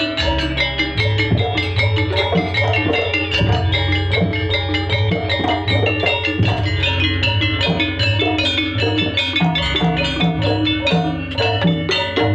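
Live jaranan gamelan music: quick, interlocking tuned metal percussion notes over drumming and a steady low gong tone.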